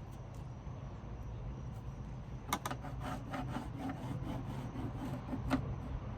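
A quick run of short scraping strokes on the wooden or fibreglass deck, about three or four a second, beginning and ending with a sharper knock, over a steady low hum.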